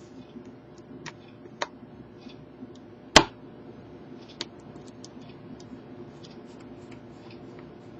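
Scattered faint clicks and taps, with one sharper click about three seconds in, over a low steady hum.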